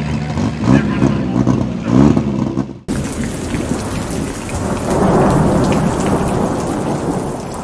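A mini two-wheel-drive pulling truck's engine running, revving up twice. About three seconds in it cuts off abruptly to a rushing, rumbling thunder-and-rain noise that swells a couple of seconds later.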